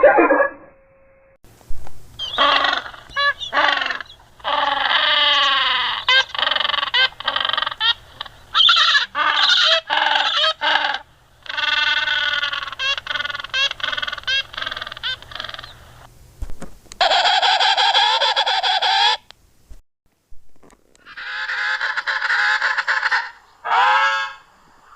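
Made-up creature calls built from slowed-down turkey sounds and penguin calls: a long run of honking bird calls with short breaks between them, a higher call at about seventeen seconds, then a short pause and more calls near the end.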